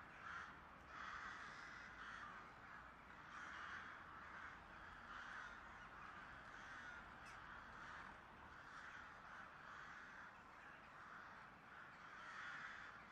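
Crows cawing, faint, a harsh call repeated roughly once a second.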